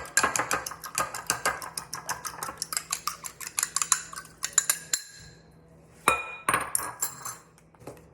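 Egg and milk being whisked in a bowl, the utensil clinking rapidly against the bowl's side, about seven or eight strokes a second. It stops for a moment about four and a half seconds in, then a second short burst of beating follows.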